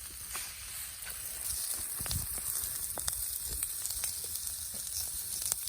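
Food sizzling in a hot pan, a steady hiss with scattered pops and crackles; the food is scorching.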